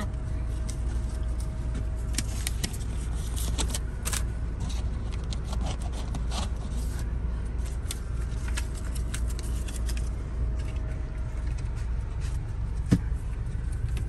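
Steady low hum of the tool truck's air conditioning running, with scattered rustling and light clicks of paper being handled and one sharp click near the end.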